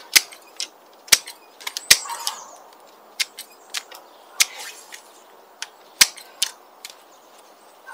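Small twigs being stripped off cut tree branches: a run of sharp, irregular clicks and snaps, with brief rustling of twigs between them.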